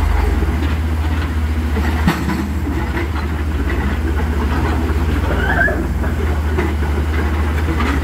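Komatsu PC130 hydraulic excavator's diesel engine running steadily with a deep, rapid throb, over the rush of river rapids. A single sharp knock comes about two seconds in.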